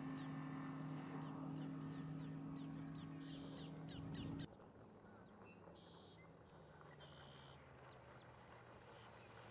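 Steady distant drone of a 250 hp Yamaha V Max four-stroke outboard running at speed, with birds calling over it. About four and a half seconds in the drone cuts off suddenly, leaving faint birdsong and a fainter low engine hum that grows near the end.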